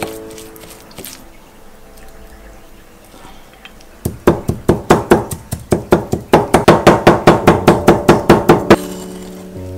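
Chef's knife mincing salted shrimp on a cutting board: a rapid, even run of sharp chopping strokes, about five or six a second, starting about four seconds in and lasting four to five seconds.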